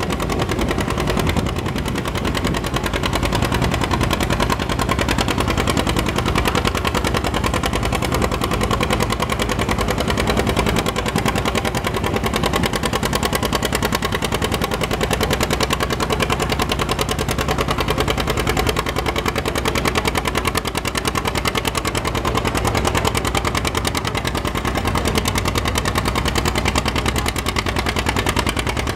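John Deere two-cylinder tractor engine working hard under load as it pulls a tractor-pull sled, its exhaust popping in a rapid, even rhythm.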